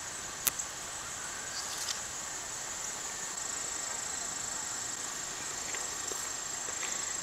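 Steady high-pitched chorus of insects in the garden, with a faint click about half a second in.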